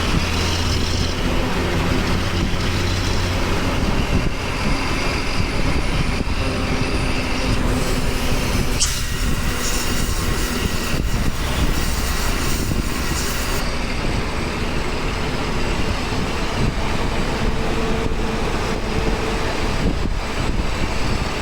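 Hino bus diesel engine running steadily at speed, with road and wind noise. There is a short sharp click about nine seconds in.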